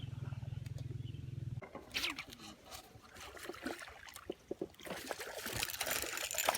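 A low steady hum cuts off about one and a half seconds in. Irregular splashing and sloshing of water follow, busiest near the end.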